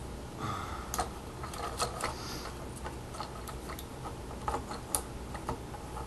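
Plastic parts of a Transformers Leadfoot action figure clicking and rattling as they are moved and set in place by hand: irregular sharp clicks, a dozen or so, a few louder ones standing out.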